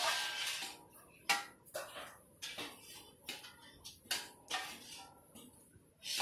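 Hands rubbing and working a crumbly roasted gram-flour (besan) mixture in a large metal bowl: a steady rustling scrape at first, then a series of irregular light knocks and scrapes against the metal.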